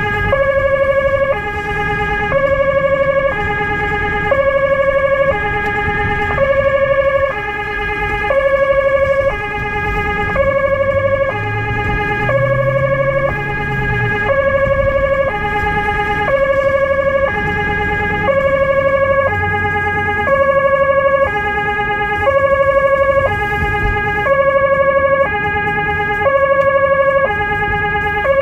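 Two-tone emergency vehicle siren alternating between a high and a low note about once a second, heard from inside a car's cabin. A steady high tone runs under it, with engine and road noise below.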